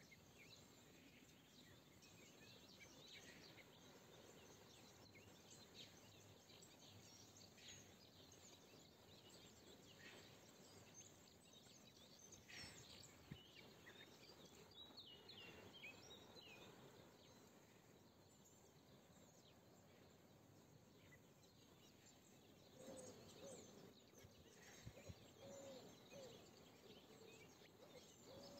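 Faint spring birdsong: scattered chirps and short calls of small birds over a low steady hiss, busiest in the middle. Near the end a hen clucks softly in a run of short low calls.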